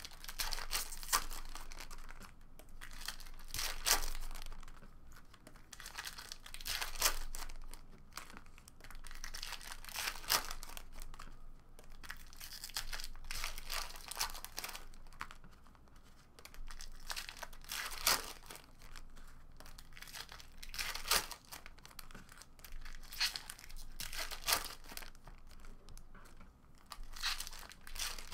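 Foil wrappers of Topps Chrome trading-card packs being torn open and crumpled by hand, a burst of crinkling every second or two with short quieter gaps between.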